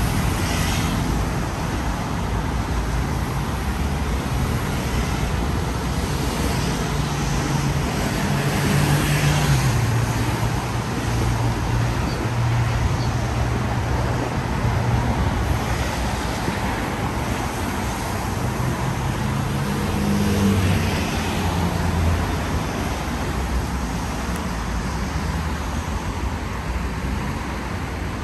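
Road traffic on a rain-wet street: car engines passing at low speed over a steady hiss. The traffic grows louder about a third of the way in and again about two-thirds in.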